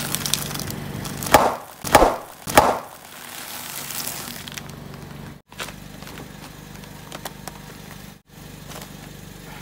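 A car tyre rolling over a bag of potato chips and crushing it: three loud crunching cracks about a second and a half to two and a half seconds in, then a softer crackling as the bag flattens. A car engine idles low underneath.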